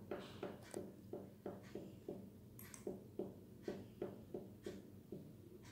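Pen tip tapping and scratching in short strokes on a small piece of paper laid on a tabletop, about three strokes a second.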